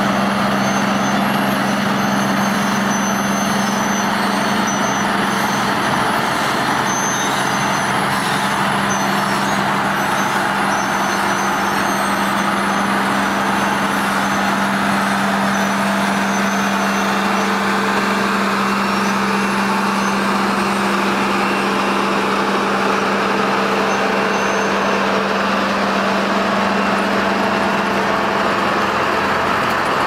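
Heavy road-paving machinery running steadily, its diesel engines giving a constant, unchanging drone.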